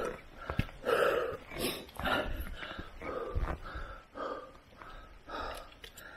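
Heavy, rhythmic breathing of a hiker panting while climbing a steep trail, about one breath a second, with short knocks of footsteps between breaths.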